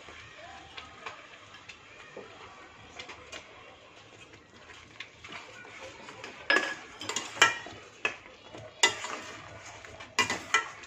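Steel spatula stirring thick beetroot upma in a stainless steel pan. The first few seconds are quiet, with soft ticks. From about six seconds in there is a run of loud clinks and scrapes of metal on the pan.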